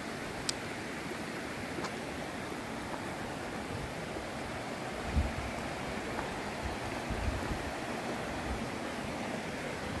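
Steady rushing hiss of the Soča River's flowing water over stones, with a few low thumps about halfway through.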